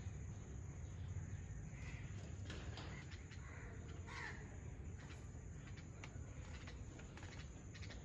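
Pet parakeets giving a few short, harsh squawks, the clearest about two and four seconds in, over a steady low rumble.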